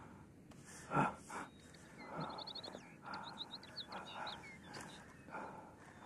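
A man's strained gasping breaths, loudest about a second in, while small birds chirp and trill in the background from about two seconds on.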